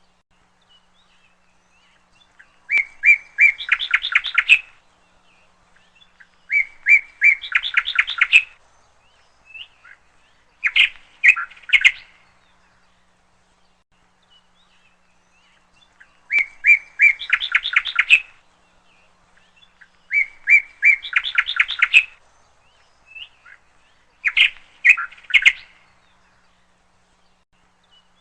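A bird chirping in bursts of rapid high chirps, about two seconds each, with short pauses between; the same run of three bursts comes round again about 13 seconds later.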